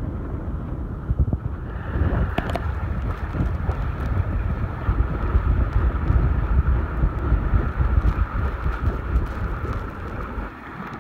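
Wind buffeting the microphone over the rush and splash of water along a sailing yacht's hull as it moves at speed. A hiss of foaming water grows in about two seconds in and carries on steadily.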